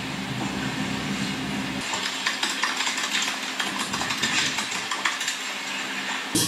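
Room noise with a low steady mechanical hum that stops about two seconds in, then light clinks and knocks of a ceramic tea mug being handled and set down.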